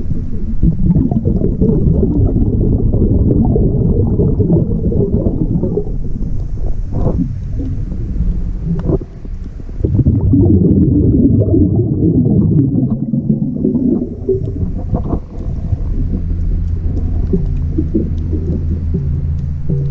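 A scuba diver's exhaled air bubbling out of the breathing regulator, heard underwater through a camera housing: long rushes of bubbles with short breaks about nine and fifteen seconds in. A low steady hum joins near the end.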